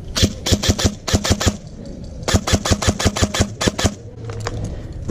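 Airsoft rifle firing two quick strings of sharp shots, about seven a second, with a short pause between them.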